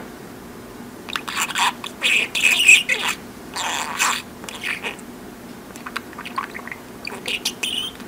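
Budgerigar chattering in quick bursts of warbling chirps and squawks, with a short pause about five seconds in. The owner hears it as mimicked speech and captions it as 'answers you'll have… you'll get to see'.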